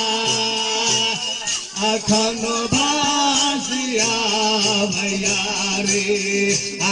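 Maithili jhumar folk music: a dholak hand drum keeps a steady beat under jingling percussion and a held melodic line.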